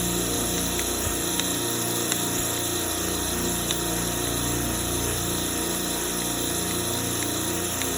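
Copeland refrigeration compressor running steadily with its valve plate off, pistons pumping, with a few light ticks. The back piston is throwing oil up on top, which the technician takes for a compressor that is pumping oil and no good.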